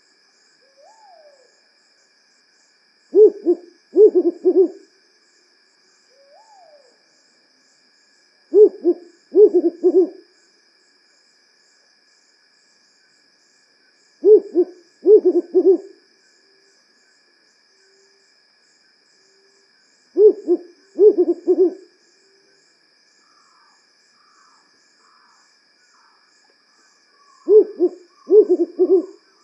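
African wood owl (Strix woodfordii) hooting in its repeated WHU-hu, WHU-hu-hu pattern: five bouts, each a quick run of deep hoots, coming about every five to six seconds.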